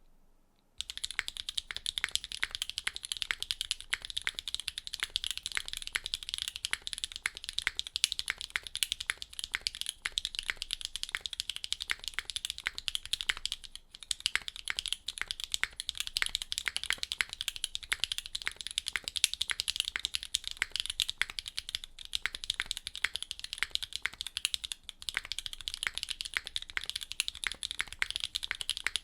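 Fast, continuous typing on a Neo65 mechanical keyboard with an aluminium plate and Kailh Xuan switches. The typing starts about a second in and pauses briefly twice.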